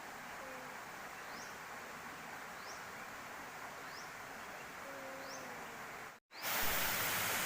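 Forest ambience: a steady hiss with a short high rising chirp repeating about every second, and faint low whistled calls. About six seconds in the sound cuts out briefly and gives way to the louder, steady rush of a waterfall.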